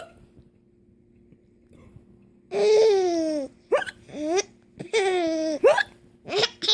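A small child hiccups once sharply, then about two and a half seconds in breaks into high-pitched giggling: long squeals that fall in pitch, with short catches of breath between them.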